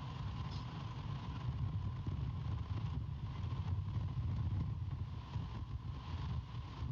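Wind buffeting an outdoor nest-camera microphone: a steady, gusting low rumble with a thin hiss, and a faint steady whine underneath.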